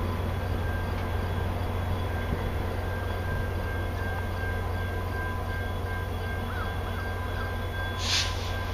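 VIA Rail passenger diesel locomotive idling at a station stop: a steady low hum with faint steady whining tones. A short hiss comes near the end.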